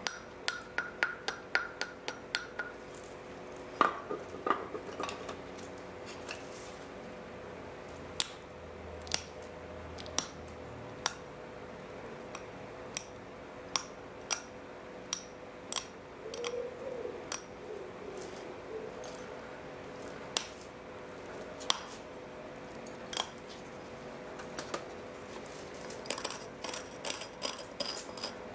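Flintknapping a Helgoland flint dagger: sharp, glassy clicks of flakes coming off the flint, some with a brief ring. A quick run of clicks comes at the start and another near the end, with single clicks every second or so in between.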